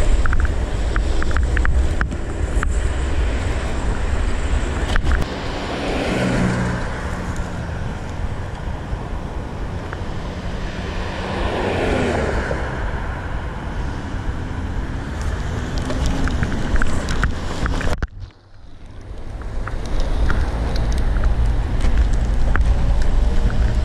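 Wind rumbling on the camera microphone while riding an electric kick scooter through street traffic. Cars pass close by twice, swelling and fading around a quarter and half of the way in, with small clicks from bumps in the road. Near the end the rumble drops away suddenly and builds back up.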